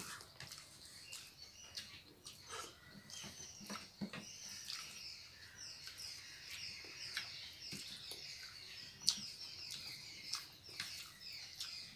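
Faint eating sounds of two people eating pulao with their fingers: chewing, lip smacks and scattered soft clicks. A run of faint high chirps, like small birds, sounds through much of it.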